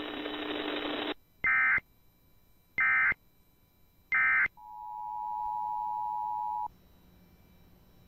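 Emergency Alert System end-of-message data: three short, identical bursts of shrill digital warbling about 1.3 seconds apart, after a second of radio hiss cuts off. Then a steady two-note tone, like the EAS attention signal, sounds for about two seconds and stops.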